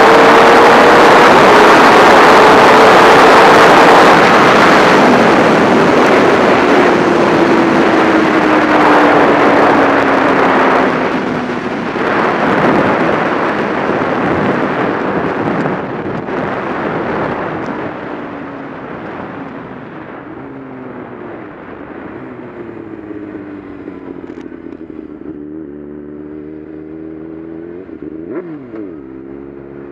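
Wind rushing over a motorcycle at high speed, with the engine's note sliding steadily lower as the bike slows down. The wind dies away over the first half, leaving the engine running at low speed, with a short throttle blip near the end.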